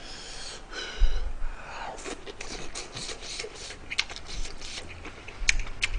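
Close-miked eating: chewing and mouth noises, with short clicks and scrapes of a spoon against a bowl.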